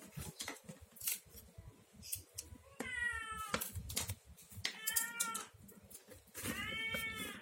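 A cat meowing three times, each meow under a second long, with faint clicks and handling noises before the first one.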